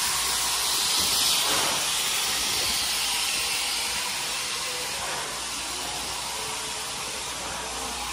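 JNR Class 8620 steam locomotive No. 58654, standing at a station platform, hissing steam steadily; the hiss eases slightly after a few seconds.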